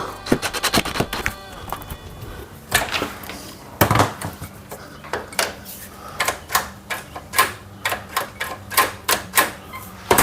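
Irregular metallic clicks and knocks, a few a second, from hand tools tightening down the smart lock's mounting screws and hardware.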